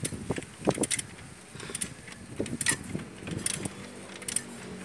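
Irregular metallic clinks and knocks of tools and a long handle working against a seized Toyota 2C diesel engine as it is forced by hand. The engine is very stiff and barely turns.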